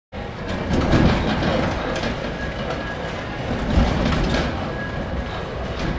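Roller-coaster ride audio from the simulator's speakers: a steady rumbling, clattering noise of cars running on track, swelling louder about one second in and again about four seconds in.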